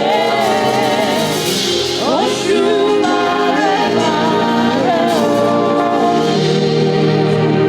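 Gospel worship music: sustained keyboard chords under a voice singing long, wavering notes, with a sung upward slide a couple of seconds in.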